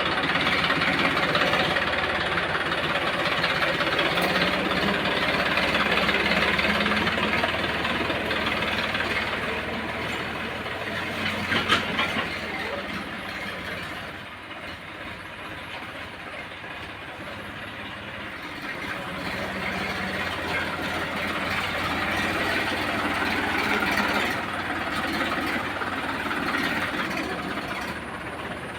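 Massey Ferguson 1035 tractor's three-cylinder diesel engine running under load while pulling a disc plough through hard ground, along with the noise of the plough working the soil. The sound grows louder and fainter as the tractor moves nearer and farther, with one sharp knock a little before halfway.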